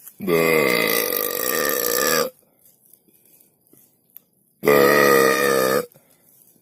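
Two long, loud, deep belches from a person. The first lasts about two seconds and the second, a few seconds later, is just over a second.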